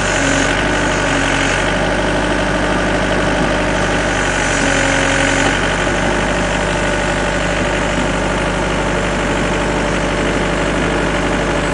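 Takeuchi compact track loader's diesel engine running steadily, working under a heavy load of green lumber on its forks.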